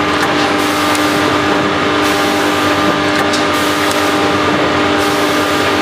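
Automatic food packaging machine running with a steady mechanical hum and a few faint clicks.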